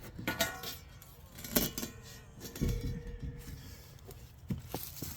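Handling sounds of a steel 20-inch concrete saw blade being picked up and moved: a few separate knocks and metallic clinks, one followed by a faint ringing tone that lasts about two seconds.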